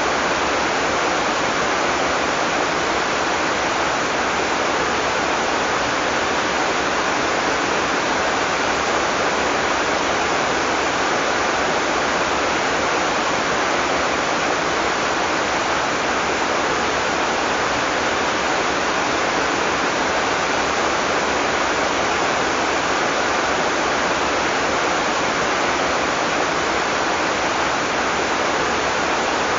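Heavy tropical rain falling steadily, a dense, even hiss with no thunder.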